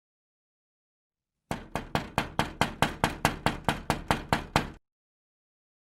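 Rapid, even knocking: about fifteen sharp knocks in quick succession, roughly four to five a second, starting and stopping abruptly.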